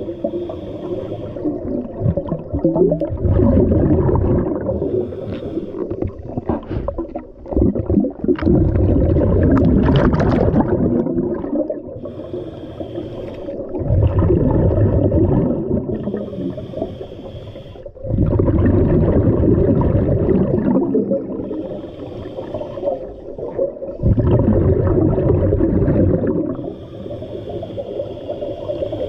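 Scuba diver breathing through a regulator underwater: a short hiss on each inhale, then a longer, louder rush of exhaled bubbles, in a steady cycle of roughly one breath every five seconds.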